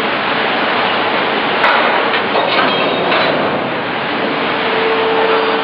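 Wagon tippler plant in operation: a loud, steady mechanical noise with a hum that comes and goes. A sharp click comes about one and a half seconds in, followed by a few lighter knocks.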